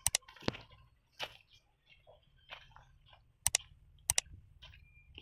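Footsteps crunching over dry leaves and twigs on hard ground: a string of sharp cracks and crackles, a few of them in quick pairs.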